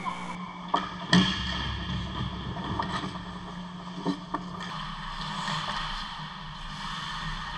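Ice hockey game sounds at the rink: skates scraping the ice and a few sharp clacks of stick and puck, the loudest just over a second in and two more about four seconds in, over a steady low hum.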